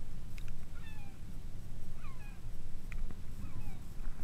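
Birds calling: short whistle-like notes, most sliding downward, several each second, over a steady low rumble.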